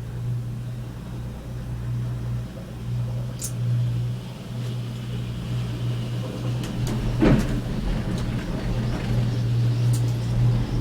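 Cable car cabin running along its cable with a steady low hum and rumble, a few light clicks, and a louder knock about seven seconds in.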